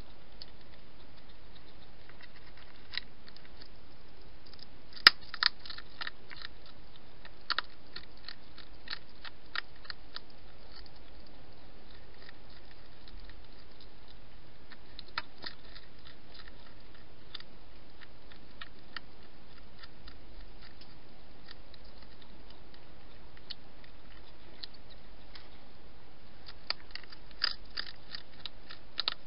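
European hedgehog eating: irregular crunching clicks of its chewing, bunched a few seconds in and again near the end, with scattered ones between, over a steady low hiss.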